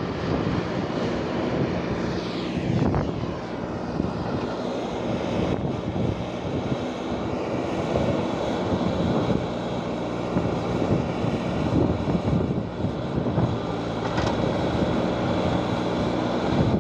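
JCB backhoe loader's diesel engine running steadily under load while it clears avalanche snow with its bucket.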